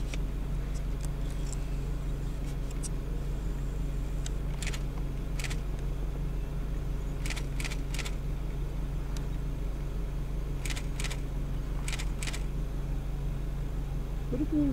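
Steady low motor hum, with a few short, sharp clicks scattered through the middle.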